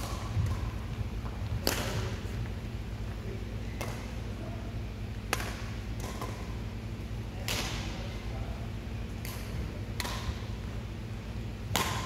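Badminton rally: sharp racket strikes on a shuttlecock, one every second or two as the players trade shots, over a steady low hum.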